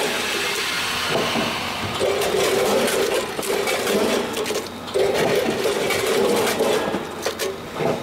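Multi-head weigher running on small packets of snacks: a buzzing hum that switches on for about two seconds and cuts out, twice, about every three seconds, over a steady clatter of clicks as packets rattle against the stainless steel hoppers and chute.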